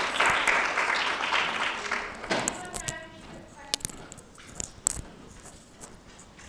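Lecture-hall audience applauding, the clapping dying away about two and a half seconds in. Faint voices and a few scattered knocks follow.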